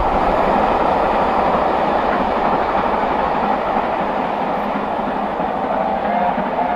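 Railtour train hauled by steam locomotive 70000 Britannia running out of sight, wheels rumbling and clattering over the rails. The noise fades slowly as it goes away.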